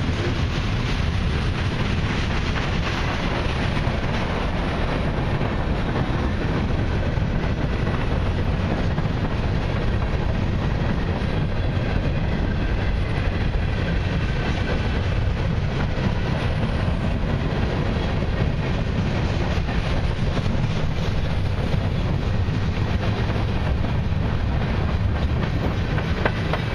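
Freight train cars rolling steadily past close by: the even noise of steel wheels running on the rails.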